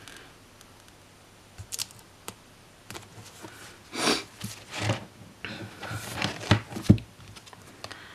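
Hands handling paper stickers on a spiral-bound planner page: a sticker pressed down, with short rustles of paper and sticker sheets, a couple early on and a cluster in the second half, and a light tap near the end.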